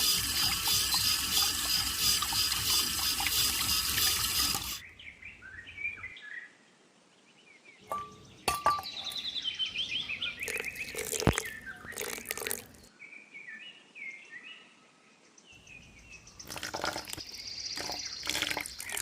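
Water running steadily, cutting off sharply about five seconds in; afterwards faint chirps and a few light clicks.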